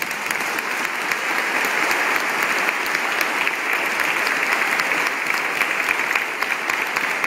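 Congregation and clergy applauding: dense, steady clapping from many hands.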